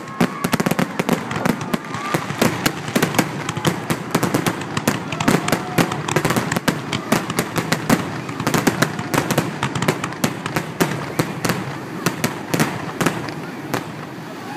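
Aerial fireworks going off in rapid, dense succession: many sharp bangs and crackling pops overlapping, thinning out over the last few seconds.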